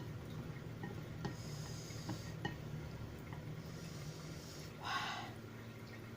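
Close-up mouth and nose sounds of someone eating very spicy noodles: small wet chewing clicks, hissing breaths, and one short, louder sniff about five seconds in, from the heat of the chilli.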